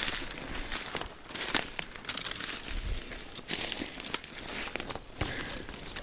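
Dry leaves and twigs crackling and rustling close to the microphone, a quick, irregular run of sharp crackles, as someone moves through dry forest undergrowth.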